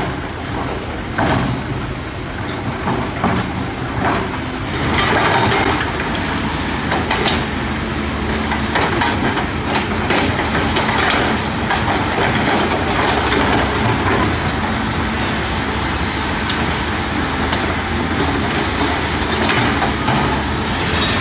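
Large hydraulic excavator at work: its diesel engine running steadily under scattered metallic knocks and clanks, with a louder rushing noise coming in about five seconds in.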